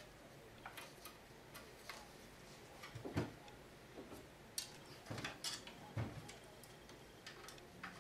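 Faint, irregular clicks and ticks of a screwdriver working screws out of the metal chassis of an Asustor AS5004T NAS, with a few light knocks as the chassis is handled, two of them a bit heavier, about three and six seconds in.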